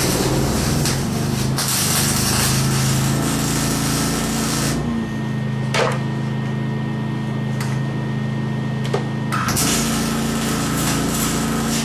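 MIG welder arc crackling and buzzing in two weld runs, the first lasting about five seconds and the second starting about two-thirds of the way in, over a steady low hum. A single sharp click falls in the pause between them.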